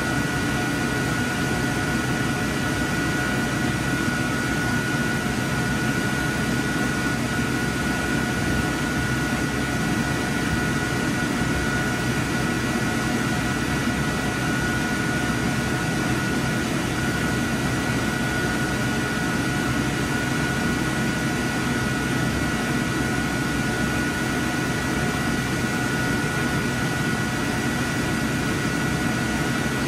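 Steady hum and rush of projection-booth fans and equipment, with a constant high whine over it.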